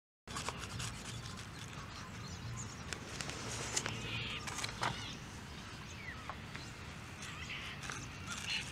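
Outdoor background with a low wind rumble on the microphone and a few short bird chirps, over scattered small clicks and rubs of a plastic part being handled.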